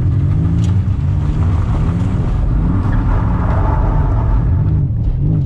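Nissan 300ZX Z31's turbocharged V6 (VG30ET) revving hard, its pitch rising and falling, heard from inside the cabin during donuts.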